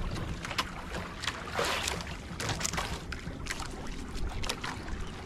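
Small fishing boat at sea: a low steady rumble with brief, scattered bursts of noise, like water slapping the hull and wind on the microphone.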